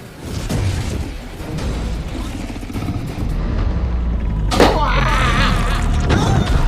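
Action-scene soundtrack: music over a low, steady rumble with booms. From about four and a half seconds in, a wavering, voice-like sound effect rises over it.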